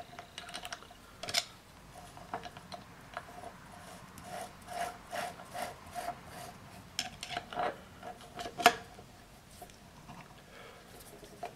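Small metal clicks, taps and rubbing as a grinding wheel is fitted onto the spindle of a tool and cutter grinder and screwed up by hand. A run of light, regular ticks comes midway, and one sharper click near the end.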